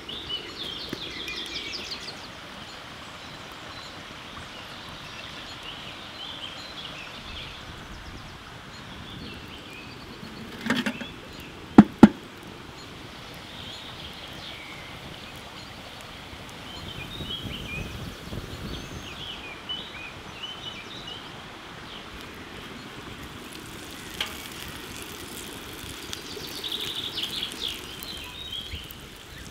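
Small birds chirping and singing over a steady outdoor background hiss. Two or three sharp, loud knocks with a brief ring come about a third of the way in.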